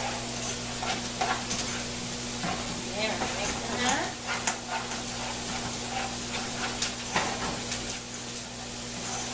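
Chicken pieces sizzling steadily in a frying pan, with a spatula stirring and scraping thick mashed potatoes in a pot beside it and now and then clicking against the pot.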